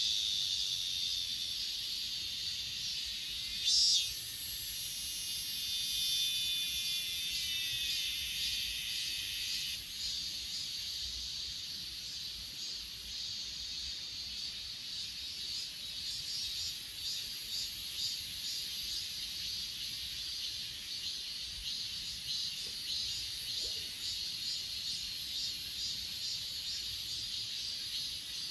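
Chorus of grass insects chirping in a steady, high, finely pulsing trill. A louder, higher buzz joins about four seconds in and fades out around ten seconds.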